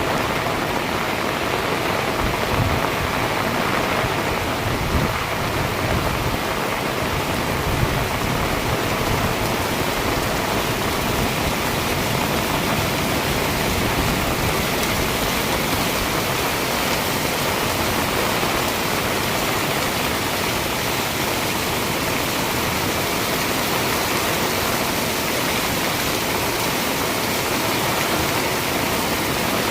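Heavy rain pouring steadily, with a few slightly louder splashes in the first several seconds.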